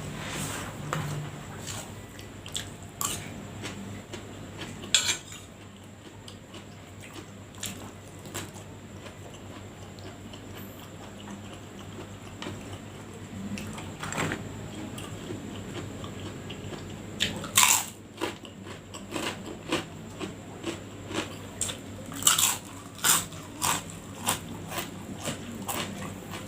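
Spoon clinking and scraping against a plate of fried rice, with chewing between. The clicks come scattered, then in quicker runs late on.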